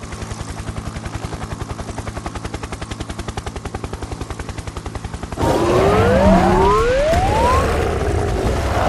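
Cartoon sound effects: a steady rapid chopping rattle, about a dozen beats a second. About five seconds in it gives way to a louder passage with several rising, siren-like pitch glides.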